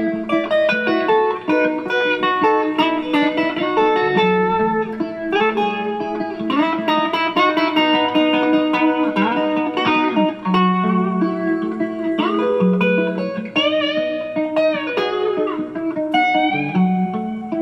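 Electric guitar played through a pedalboard, a run of single notes and held notes with several string bends.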